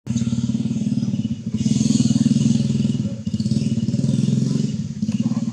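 A small engine running close by. It cuts in abruptly, runs steadily with a fast pulsing beat and swells louder twice.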